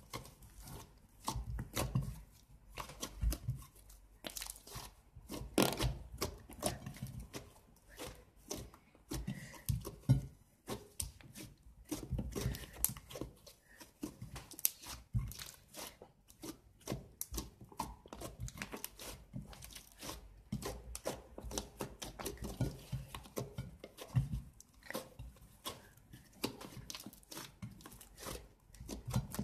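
Fluffy slime being squeezed, kneaded and pulled by hand on a ceramic platter, giving a dense, irregular run of small pops, crackles and squelches.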